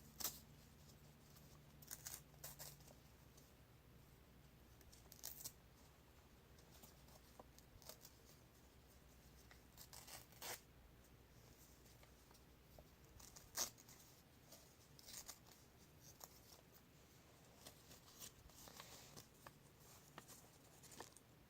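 Paper being torn and picked off by hand: faint, scattered short rips and rustles with quiet gaps between them, the loudest about halfway through.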